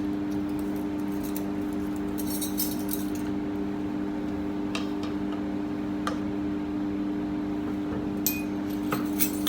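Scattered light clinks as a measuring spoon and containers are handled while adding black pepper to a marinade: a cluster about two seconds in, then single clinks every second or two. A steady low hum runs underneath.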